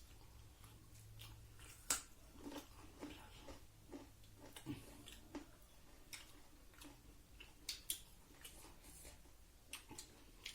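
Quiet mukbang eating sounds: soft chewing with scattered small clicks and taps of food and dishes, the sharpest about two seconds in.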